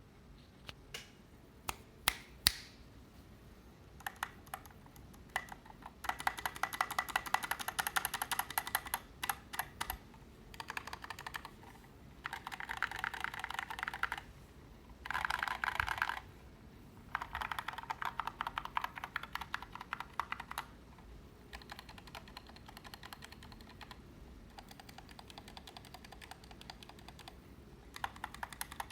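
Typing on a KBD75v2 mechanical keyboard with lubed 67 g Zealios tactile switches and SA keycaps: a few single keystrokes at first, then fast runs of clacking keystrokes in bursts of a few seconds with short pauses between.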